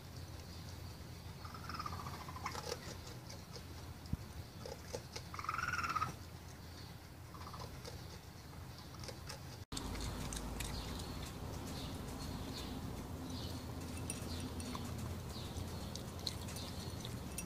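Raccoon calls: several short, high, pitched cries in the first half, the loudest about six seconds in. Then a raccoon eating dry kibble from a ceramic bowl, with irregular small clicks and crunches of the food pieces.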